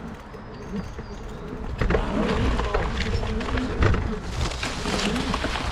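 Electric bike riding over a bumpy off-road trail: rattling and knocking with a faint wavering motor whine, getting louder about two seconds in.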